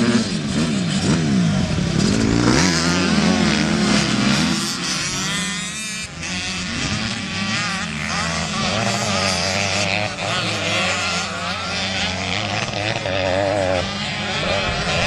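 Several motocross and enduro dirt bikes' engines revving at once, their pitches rising and falling and overlapping.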